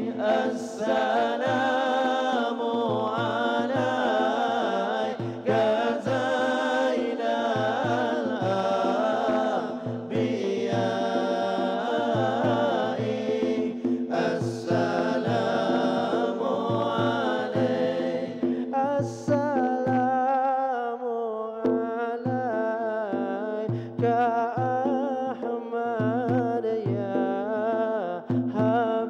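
Men's voices chanting Arabic selawat, devotional songs in praise of the Prophet, sung into microphones over a hall PA. Held low tones and a steady low beat run under the singing.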